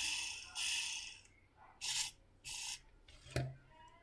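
A small metal drill chuck fitted on a 775 DC motor, handled and turned by hand: four short scraping rubs, then a sharp click about three and a half seconds in.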